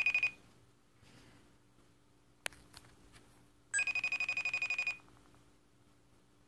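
Outgoing phone call ringing on speakerphone: a high, rapidly trilling ring about a second long that repeats every four seconds or so, with the end of one ring at the very start and a full ring about four seconds in. A single sharp click about two and a half seconds in.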